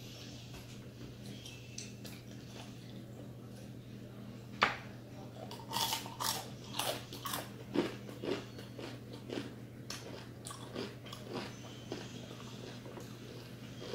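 Close-up eating of crispy deep-fried chicken skin: sharp crunches starting about four and a half seconds in, coming thick and fast for a few seconds, then softer, sparser chewing crunches. A steady low hum runs underneath.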